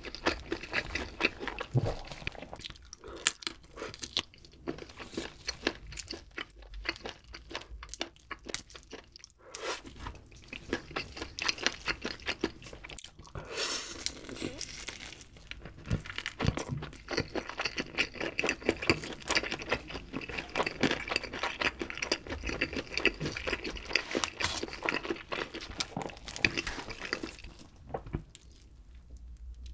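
Close-miked eating sounds: barbecue chicken being bitten, crunched and chewed, with rapid clicks throughout. The sounds thin out near the end.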